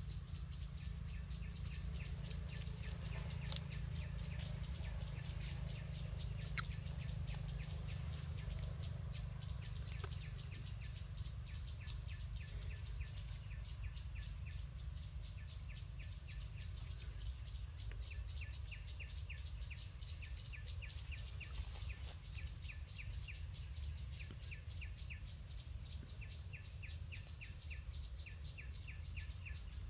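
Outdoor ambience: a steady low rumble with faint high chirping from birds or insects, repeated in quick even runs that grow denser in the second half.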